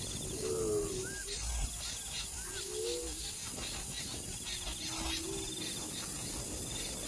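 Birds calling: low, rising-and-falling calls repeat every couple of seconds, with a few higher short chirps and a faint buzzing insect trill above them.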